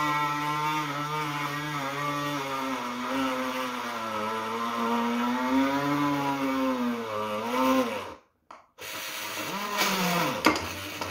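Homemade drill built from an RS-775 DC motor with a small drill chuck, whining as its bit drills into a piece of plywood. Its pitch sags and recovers as the bit bites into the wood under load. The sound cuts out for about half a second around eight seconds in, then the drill runs again.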